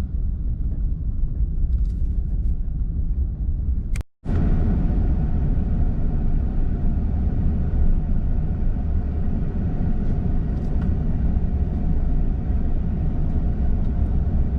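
Steady low rumble of a car driving slowly, heard from inside the cabin. It cuts out for a moment about four seconds in, then carries on unchanged.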